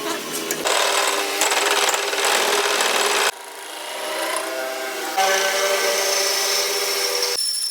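Power tool working metal: a rasping, grinding noise over a steady motor hum. It drops away about three seconds in, builds back, and runs loud again from about five seconds in until near the end.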